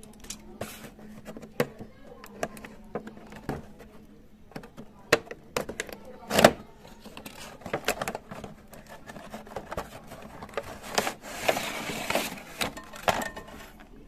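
Handling and opening a cardboard toy box: scattered clicks, taps and knocks of cardboard and plastic, the loudest knock about six and a half seconds in. Near the end comes a longer scraping rustle as the cardboard insert slides out of the box.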